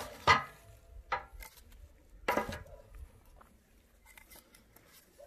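Split wood pieces knocking and clattering against the steel feed opening of a rocket stove as they are loaded in by hand. There are three clear knocks in the first two and a half seconds, the first the loudest, then lighter taps.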